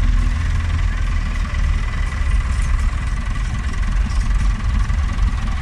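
Vintage tractor diesel engines running steadily at low speed: a Massey Ferguson 185 pulling slowly past close by, a blue Ford tractor following behind.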